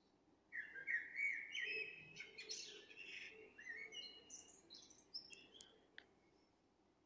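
Birds chirping: overlapping short calls and trills start about half a second in and die away around six seconds in.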